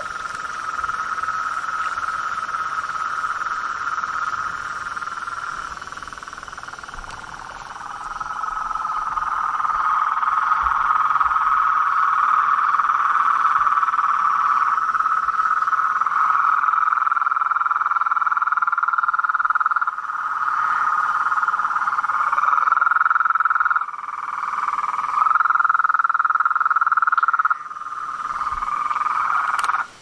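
Dense, steady chorus of many frogs calling at dusk. It dips briefly a few seconds in, then swells, and its level jumps abruptly several times in the second half.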